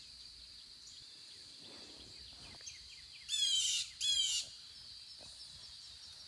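A songbird sings two quick phrases of rapid, falling notes a little over three seconds in. Behind it is a faint, steady high-pitched hiss.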